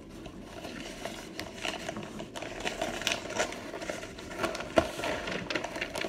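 Cardboard cornstarch box being torn and peeled apart by hand, with irregular crackling and crumbling as hard baked cornstarch chunks break free and drop into a foil pan. A sharper click comes near the five-second mark.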